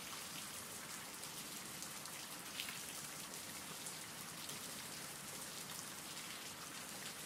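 Steady rain, heard quietly: an even hiss with a fine patter of drops.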